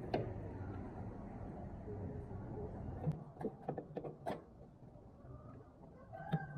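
A wrench working the clamp bolts that hold a chopper knife in place: a few sharp, separate metal clicks and clinks. A faint low hum stops about three seconds in.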